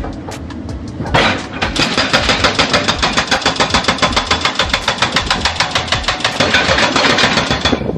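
Hydraulic hammer breaker on a backhoe excavator pounding in rapid, even blows over the running diesel engine. It starts about a second in and cuts off suddenly near the end.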